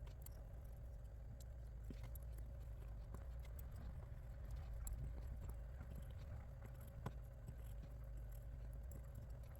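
Faint, scattered clicks and taps of small RC wheel parts being handled during assembly, over a steady low hum.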